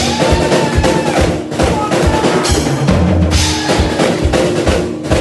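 Live drum kit solo: fast, dense bass drum and snare hits with cymbals ringing over them, in rolls.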